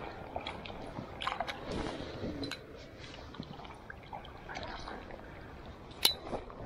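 Water splashing and dripping in small scattered bursts, with light clicks and knocks, the loudest a sharp click about six seconds in.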